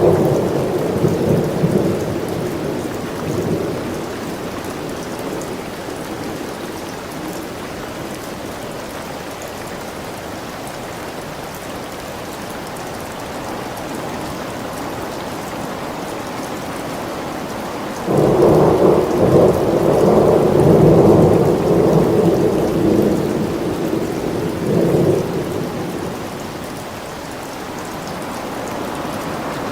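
Steady heavy rain with rolling thunder. One roll fades out over the first few seconds, and another breaks about two-thirds of the way through and rumbles for several seconds before dying away.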